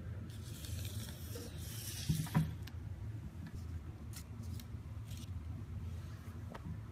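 Paper rustling as small hands handle a toy's folded paper stand, with a sharp knock a little over two seconds in. After that come a few light taps and clicks of things handled on a wooden table.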